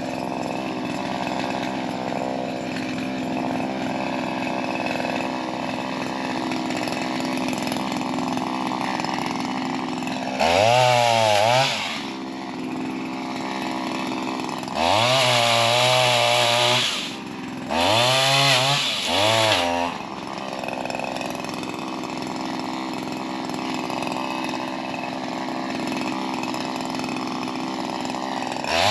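Shindaiwa M230 multitool's small two-stroke engine driving a pole saw, idling steadily and revved up to full throttle three times, each for one to two seconds, with another rev starting near the end.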